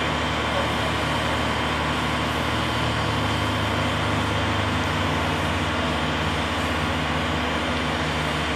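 NSWGR 32 class 4-6-0 steam locomotive standing with steam up: a steady hiss of escaping steam over a low, even hum.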